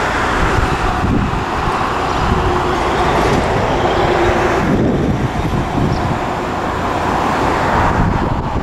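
Moka Railway diesel railcar running as it pulls away along the track, heard under heavy wind buffeting on the microphone.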